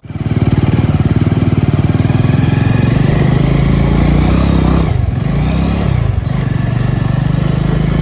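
Motorcycle engine running loud and steady while riding. The engine note dips and comes back up twice, about five and six seconds in.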